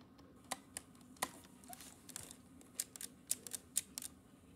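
A series of faint, irregular clicks and taps, about a dozen over a few seconds, with a low steady hum beneath.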